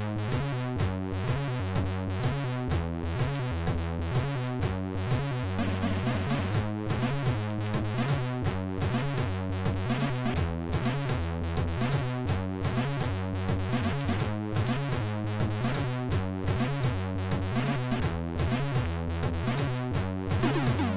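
Commodore 64 SID chip music playing, with a repeating bass line under a steady beat.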